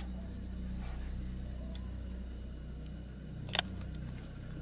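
A steady low hum with faint hiss, broken by a single sharp click about three and a half seconds in.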